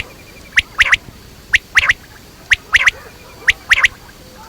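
Male quail giving its three-note call: a single sharp note followed by a quick double note, repeated about once a second, four times.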